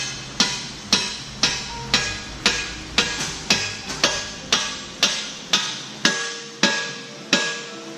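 Hammer striking a steel pin at a Kubota backhoe bucket's linkage: sharp, ringing metal blows about two a second, stopping near the end.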